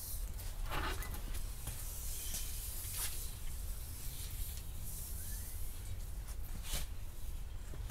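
Vinyl pinstripe tape being pulled out and its backing paper peeled away: soft hissing rustles at the start and again about three seconds in, with a few light clicks.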